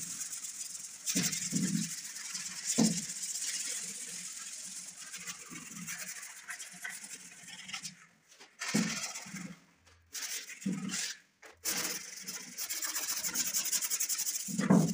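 150-grit sandpaper rubbed by hand over an old teak tabletop in rapid back-and-forth scratching strokes, pausing briefly a few times. A few dull bumps come in among the strokes, the loudest near the end.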